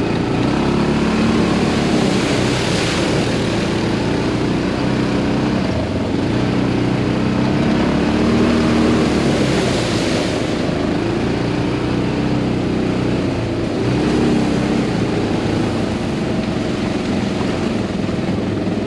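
Off-road buggy (side-by-side ATV) engine running as it drives along a bumpy dirt road. The engine pitch rises and falls with the throttle, over steady rushing wind and road noise.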